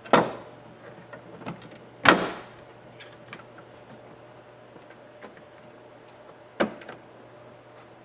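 Sharp metallic clicks and knocks inside a car door as a screwdriver works the door handle rod's retaining clip into place: three loud snaps, one at the start, one about two seconds in and one near the end, with lighter taps between.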